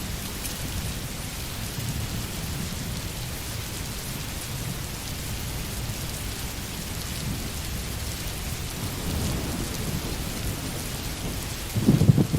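Steady heavy rain hissing, over a low continuous rumble of thunder that swells louder near the end.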